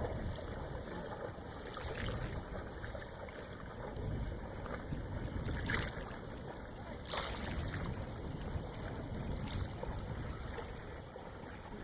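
Small sea waves washing up onto a fine-pebble beach: a steady low rush with several brief hissing surges a few seconds apart as each wave breaks and runs up the pebbles.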